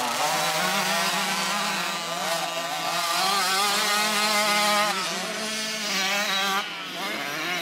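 Small two-stroke engines of children's mini motocross bikes revving up and down as they ride a muddy track, the pitch rising and falling over and over. The sound drops in level near the end.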